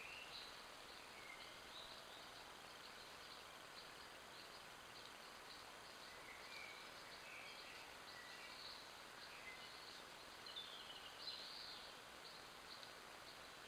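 Near silence: the steady hiss of a trail camera's microphone, with faint, distant bird chirps now and then, a little stronger about eleven seconds in.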